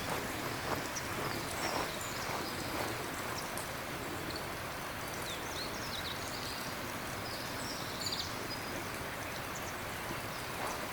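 Slow footsteps on a path, about one a second for the first few seconds and again near the end, over a steady outdoor hiss, with small birds chirping briefly in the middle.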